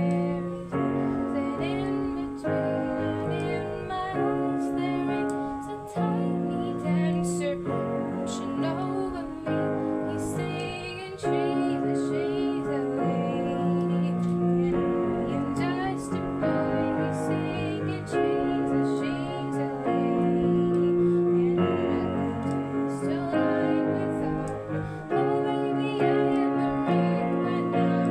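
Music: a slow melody of held notes over sustained chords that change about every two seconds.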